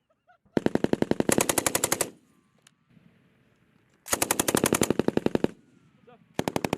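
Machine gun firing in rapid bursts of a second and a half or so: two full bursts, with a third starting near the end.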